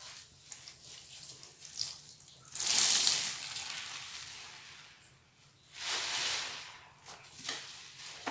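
A soap-soaked new sponge being squeezed and kneaded by hand in a basin of sudsy water, with wet squishing and the crackle of foam. It gives two louder wet squelches as water is pressed out, the first about two and a half seconds in and fading slowly, the second, shorter one about six seconds in.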